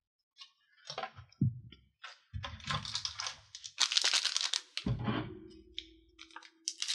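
Trading cards being handled and sorted onto piles on a table: irregular rustling and sliding of card stock, the loudest burst about four seconds in, with a few dull bumps against the table.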